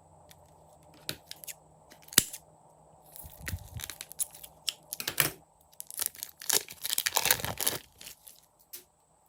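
Hands squishing and stretching sticky clear slime: irregular crackling and popping. There is a sharp snap about two seconds in, then a run of sticky crackles from about three to eight seconds in.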